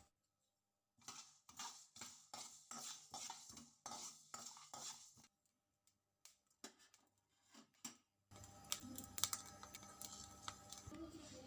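Kitchen utensils knocking and clinking: a quick run of about ten strokes, two or three a second, then a few scattered clinks, then a denser stretch of scraping and rattling near the end.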